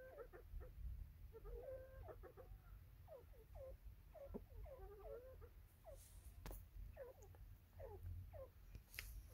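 Faint, soft clucking calls of a white francolin: short chirping notes, some sliding in pitch, coming in loose irregular runs, with a couple of sharp clicks in the second half.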